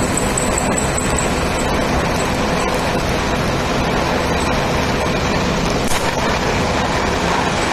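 TIG welding arc running with a steady hiss as the tungsten torch is carried along a metal plate, melting the surface without filler.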